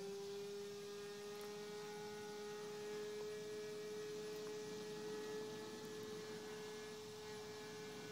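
Radio-controlled model airplane's motor in flight, a steady single-pitched drone that creeps slightly higher over the first few seconds.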